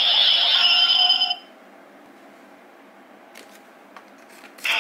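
Decade Driver toy belt's electronic sound effect playing and cutting off about a second in. Then a few faint plastic clicks as the buckle is handled, and a new burst of the toy's sound begins right at the end.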